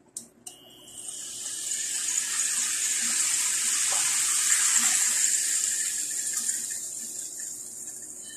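Pieces of boiled pork belly sizzling as they go into hot cooking oil. The hiss builds over the first couple of seconds, holds, then dies away near the end.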